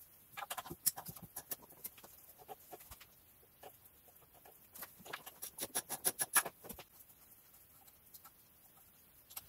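Ratchet wrench clicking in quick runs, once about half a second in and again for a longer stretch around five to six and a half seconds, while the E10 Torx bolts holding the air filter housing are undone.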